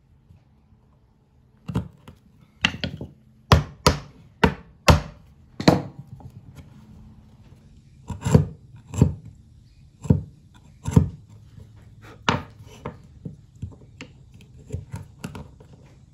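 Narrow chisel chopping down into a wooden block, cutting out a small keyway: a series of sharp, irregular knocks and clicks, loudest in the first two-thirds and fainter near the end.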